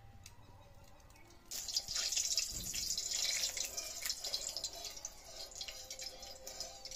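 Cooking oil poured into a hot iron kadai, with a sudden hissing and crackling in the pan from about a second and a half in that goes on steadily as the oil heats.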